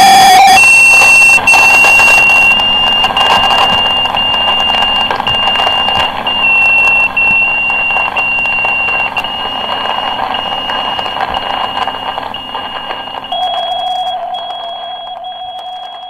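A high electronic beep repeating over a steady noisy drone, slowly fading; about 13 seconds in, the beep jumps to a higher pitch and a lower steady tone joins it.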